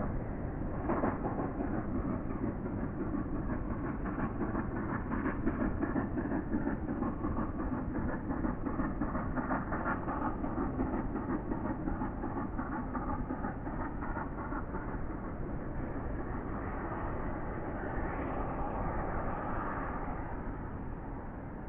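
LNER A3 steam locomotive Flying Scotsman, a three-cylinder engine, working hard uphill with a train of coaches. It is heard from far off as a steady, rapid exhaust beat over the rumble of the train.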